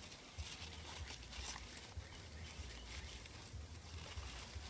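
Faint crackling and snapping of crumpled paper and dry herb stems catching fire as kindling in an earthen cob oven, many small irregular pops, over a steady low rumble.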